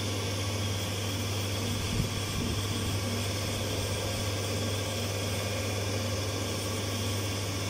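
Haas CNC vertical milling machine powered up and idling: a steady low hum under an even fan-like hiss, with one soft knock about two seconds in.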